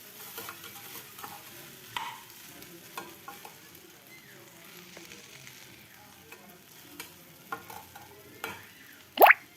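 Fried rice with vegetables and paneer frying on a low flame in a kadai, sizzling softly while a spatula stirs it with scattered clicks and scrapes against the pan. One loud, sharp scrape comes near the end.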